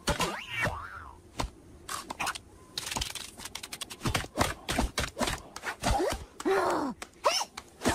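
Cartoon sound effects: a quick run of clicks and taps mixed with the characters' wordless squeaks, gasps and grunts that slide up and down in pitch.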